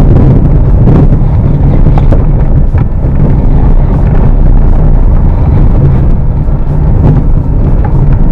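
Lada 21099 driving slowly over a rough, muddy off-road track. Its engine gives a loud, steady low rumble, with occasional knocks from the car jolting over the ground.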